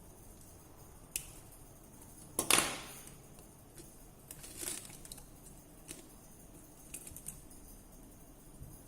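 Scattered small clicks and short scrapes of hand tools and parts being handled while working on a smartphone. The loudest is a brief scrape about two and a half seconds in.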